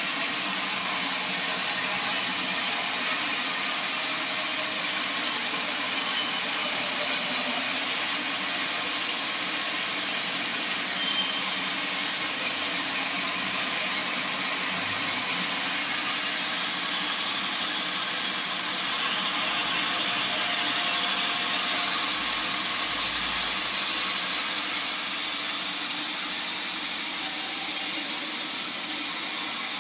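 Sawmill saw running steadily: a continuous hissing noise with a thin high whine, a little louder about two-thirds of the way through.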